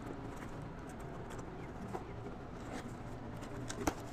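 Packaging being handled and opened: scattered small clicks and taps over a steady background hiss, with one sharper click near the end.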